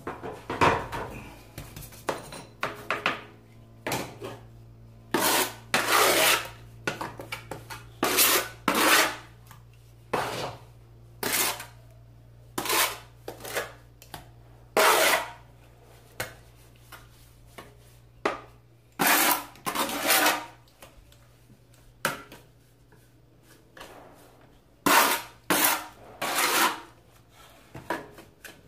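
Steel trowel scraping and spreading tile-adhesive mortar into a gap in a terracotta tile floor, in repeated short scraping strokes at irregular intervals.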